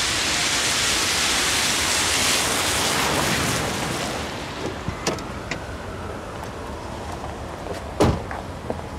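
A car on a wet street: a loud hiss of tyres on wet asphalt as it drives up, dying away about four seconds in as it stops. About eight seconds in there is a single sharp thump.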